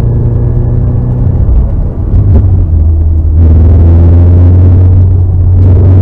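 Car engine droning loudly under steady load. The note drops briefly about two seconds in, then picks up again at a different pitch about a second and a half later.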